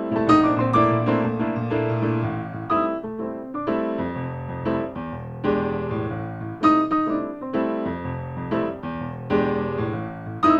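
Background piano music with a sustained bass line under a run of repeated chords.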